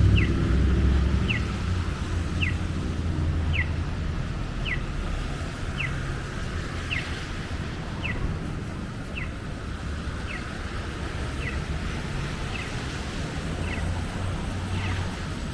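Pedestrian crossing signal chirping: a short falling chirp repeated at an even pace, about once a second, over a low traffic rumble that eases after the first couple of seconds.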